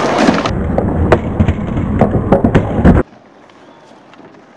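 Skateboard wheels rolling on pavement, a low rumble with sharp clacks of the board, which stops abruptly about three seconds in. The rest is a much fainter rolling with a few light clicks.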